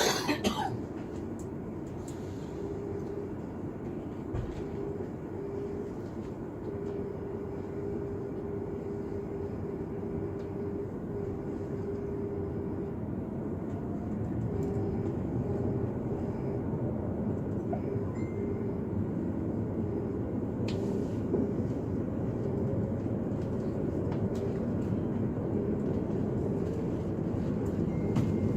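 Running noise inside an S-Bahn electric train: a steady rumble of wheels on rail with an on-and-off motor hum, slowly growing louder, with a faint rising whine about halfway through. It opens with a brief sharp squeal that falls quickly in pitch.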